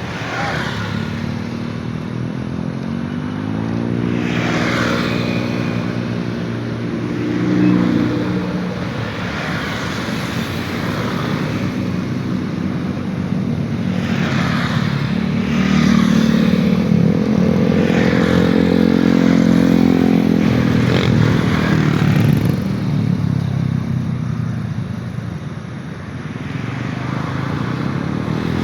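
Motor vehicles, motorcycles among them, passing one after another. Their engine drones rise and fall in pitch, loudest around the middle.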